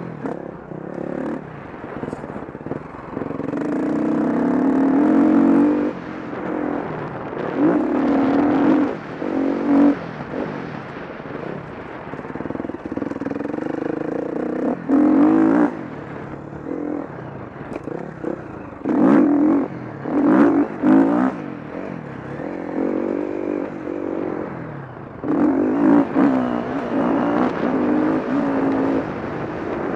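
KTM 350 SX-F motocross bike's single-cylinder four-stroke engine, heard from a camera mounted on the bike, ridden hard on a dirt track: the revs climb in repeated surges and drop back between them as the rider works the throttle through corners and straights.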